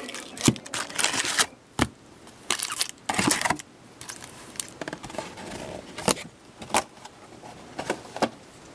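A trading-card box and its packs being handled: scattered sharp clicks and taps with short rustles of cardboard and plastic wrapping.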